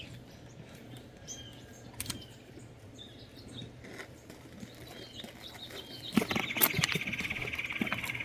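Faint bird chirps over a quiet background, then from about six seconds in a loud, close rustling and scraping noise right at the microphone.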